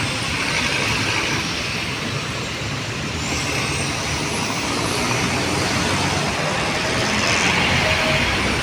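Steady city road traffic: a continuous rush of engines and tyres from cars, trucks and buses.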